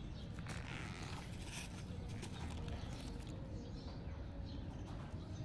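Steady low outdoor rumble with scattered faint scratches and rustles from a kitten's paws and a grass stalk on concrete as it crouches and pounces.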